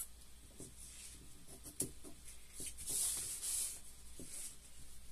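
Scissors snipping and handling of thin nylon raincoat fabric: a sharp click a little under two seconds in, and a hissy rustle of the nylon around three seconds in.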